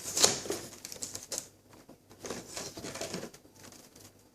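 Handling noise: irregular small clicks, taps and rustles of a small drone battery and its plastic packaging being picked up and handled, busiest in the first second and a half.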